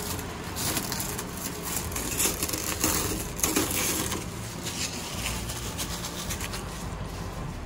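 Clear plastic wrapping crinkling and rustling as it is pulled off a remote-control truck's body, densest in the first half and thinning out after.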